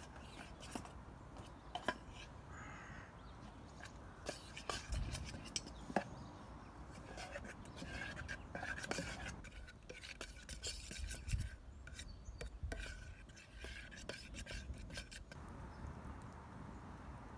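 Metal spoon stirring melted chocolate in a small Vango non-stick saucepan, with light scrapes and clicks against the pan. Birds call faintly now and then.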